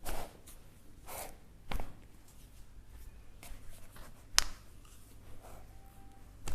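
Hands and clothing rubbing and shifting during a chiropractic manipulation, with one sharp joint crack about four and a half seconds in.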